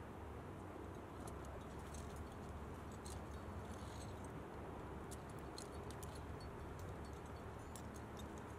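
Faint, scattered clinks of metal climbing gear such as carabiners and cams jostling on harnesses and slings, over a steady low background rumble.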